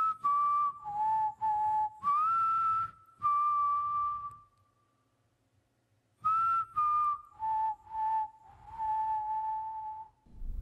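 A person whistling a slow, mostly descending melody in two phrases with a pause between them. Each held note carries breathy air noise.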